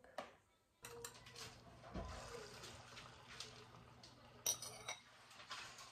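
Quiet kitchen sounds: a steady low hum and faint rushing noise begin about a second in, with light knocks and clinks, a dull knock about two seconds in and a short clatter near the end.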